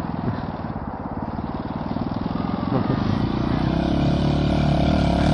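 Small engine of a miniature jeep driving over a muddy dirt track, running steadily and growing louder as it approaches.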